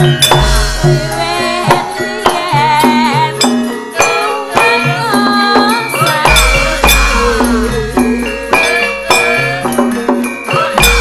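Javanese gamelan ensemble playing: metallophones ring held notes while a drum and sharp metallic clappers strike a busy rhythm under a wavering melody. Deep gong strokes sound near the start, about six seconds in, and again at the end.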